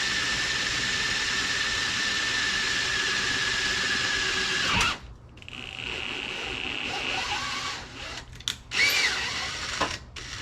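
Power drill turning a self-drilling 1/4-20 drill-tap bit on a long extension, drilling and threading a hole in the Trans Am's headlight area. It runs steadily with a high whine and stops suddenly about five seconds in. It then runs again more quietly for a couple of seconds, and a few knocks follow near the end.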